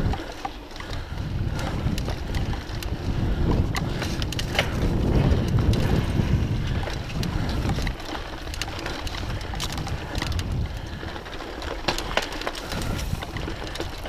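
Mountain bike riding over a dirt singletrack: wind buffeting the microphone and a rough rumble from the tyres and frame over the bumpy ground, with frequent sharp clicks and rattles from the bike. The rumble is loudest about halfway through.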